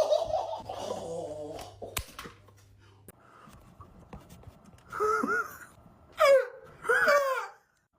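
A person making silly wordless vocal noises: a moaning sound at the start, then after a pause three short squeaky calls that slide up and down in pitch.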